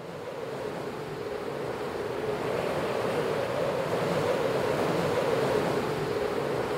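A steady rushing noise, like surf or wind, that swells in over the first couple of seconds and then holds.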